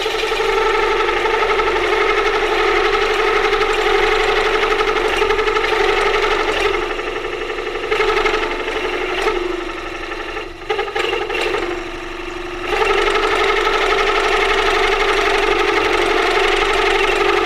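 Half-inch carbide straight-flute drill cutting through a hard spot in a cast iron casting on a milling machine, chattering with a loud, steady pitched ring. For a few seconds midway the ring weakens and breaks up, then comes back. The chatter comes from the drill running into a tough, hard spot in the casting.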